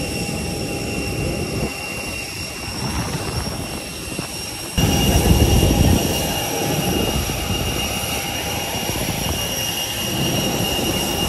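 Steady cabin noise inside an Airbus A321neo airliner: a low hum of engines and air conditioning with a thin high whine. It steps abruptly louder about five seconds in.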